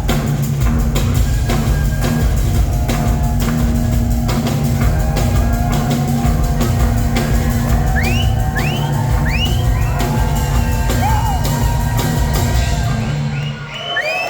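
Live rock band playing in a large hall, with heavy steady bass and drums and short rising high squeals over the top. The music stops about a second before the end, and a long, piercing whistle from the audience starts as the crowd begins to cheer.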